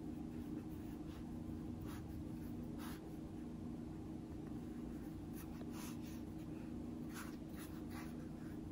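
Soft rubbing and a few brief scuffs as hands roll up a strip of layered pancake dough on a wooden board, over a steady low hum.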